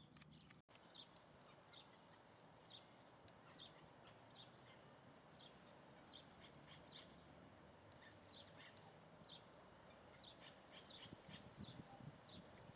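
A small bird calling faintly: short, high chirps, each dropping slightly in pitch, repeated irregularly about once or twice a second over a steady background hiss. A few soft low thumps near the end.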